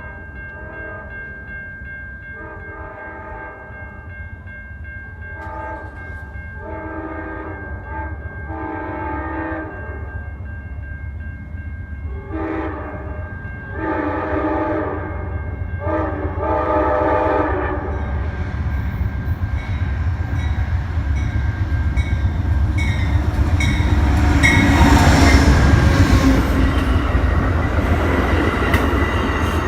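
Amtrak GE P42DC diesel locomotive approaching and sounding its air horn: a series of blasts in two groups, over a steady high ringing tone. The engine and wheel rumble grows steadily louder and is loudest as the locomotive passes, about three-quarters of the way in, with clacking of wheels over rail joints and the first thin squeal of the brakes near the end.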